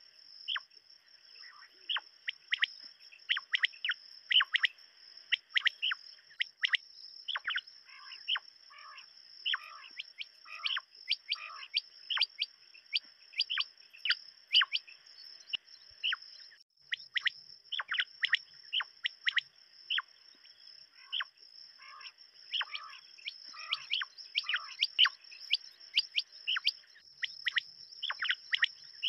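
Several quail calling, a dense run of short, sharp chirping notes in quick succession, over a steady high-pitched ringing that drops out briefly about halfway through.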